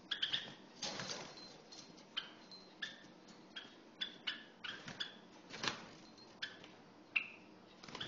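Java sparrow giving a series of short, sharp chip notes, irregularly spaced at about two a second. Two softer rustles come about a second in and just before six seconds.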